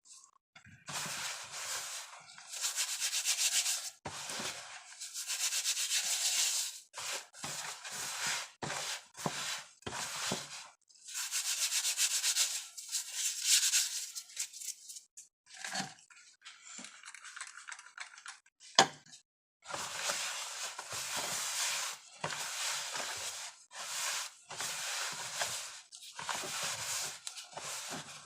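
Gloved hands rubbing and mixing a baking soda and citric acid powder mix in a bowl: a gritty rubbing in stop-start bursts with short pauses, and one sharp knock a little past the middle.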